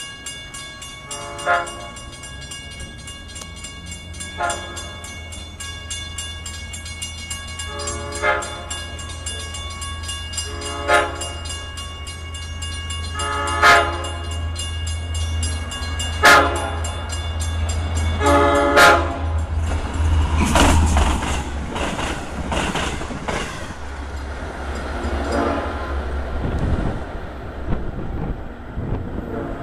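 A Long Island Rail Road diesel locomotive sounds its air horn in about seven short blasts, each two to three seconds apart and louder as the train nears the crossing, over a growing engine rumble. From about two-thirds of the way in, the train passes with a loud rush of wheel and rail noise and clickety-clack, which fades near the end.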